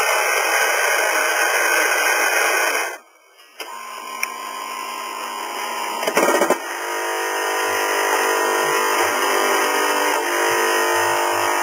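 Quick Mill Monza super-automatic espresso machine working through a brew cycle: a loud coarse grinding noise that stops abruptly about three seconds in, then a quieter motor running, a clunk about six seconds in, and a steady buzzing hum as the machine builds up to dispensing coffee.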